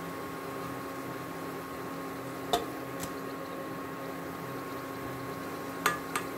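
Hot oil sizzling steadily as breaded snacks deep-fry in a pan, over a steady hum. A few sharp metal clicks of the turner against the pan: one about two and a half seconds in, a fainter one half a second later, and two close together near the end.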